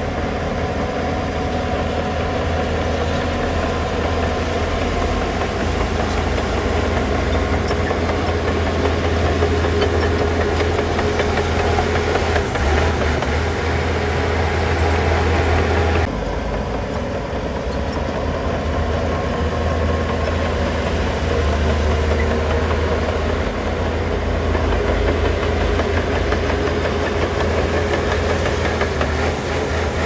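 Diesel engines of heavy earthmoving machinery running steadily with a deep, constant hum. The sound changes abruptly about halfway through.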